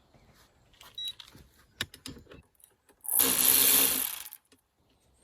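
A few sharp tool clicks, then about three seconds in a power tool runs hard for just over a second. It is driving a puller to break a wiper arm loose from its tapered spindle.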